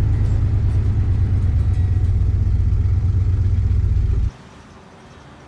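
1970 Plymouth Fury III on the move, a steady low rumble heard from the driver's seat, which cuts off suddenly about four seconds in and leaves a faint low hum.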